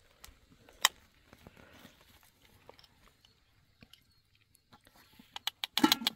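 Eating sounds: scattered crunches and sharp clicks as crisp flatbread is broken and eaten, with one loud click about a second in and a quick run of loud clicks and crunching near the end.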